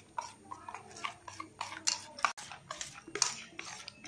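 A hand mixing and beating thick dahi pitha batter (curd, semolina, flour and rice flour) in a steel bowl, giving irregular wet squelches and slaps.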